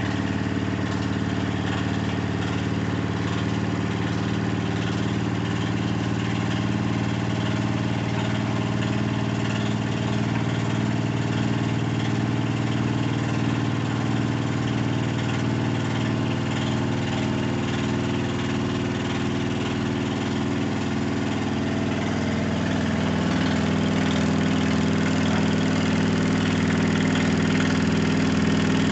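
Washing machine spinning with a loud, steady mechanical drone. About three-quarters of the way through, its pitch shifts and it gets a little louder.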